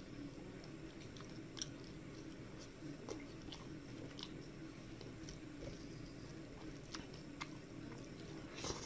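Close-up eating sounds: chewing with irregular wet clicks and smacks, and fingers mixing rice and curry on a steel plate. The loudest burst comes near the end as a handful of rice goes into the mouth.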